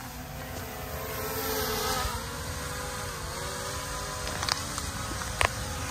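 Small DJI Mini 3 Pro drone's propellers whining as it flies in close to land, the whine growing louder and dipping in pitch briefly in the middle. Wind rumbles on the microphone, and two short sharp clicks come near the end.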